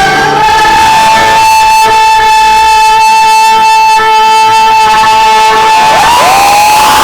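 A singer holds one long, steady high note for about six seconds over acoustic guitar, closing the song. Near the end the crowd begins to scream and cheer.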